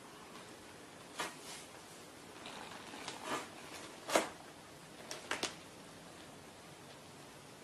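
A cat shifting and settling down inside a cardboard box, giving a few short rustling scrapes against the cardboard, the loudest about four seconds in, over a faint steady hiss.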